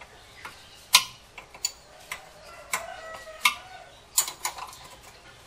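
Irregular sharp metal clicks and clinks of hand tools and parts being handled at a car's bare wheel hub and brake assembly, about seven or eight in all, the loudest about a second in.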